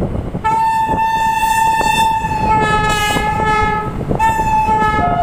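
Train horn sounding two long blasts, the first lasting about three and a half seconds and the second shorter, dropping to a lower pitch at the very end, over the steady rumble of the moving train.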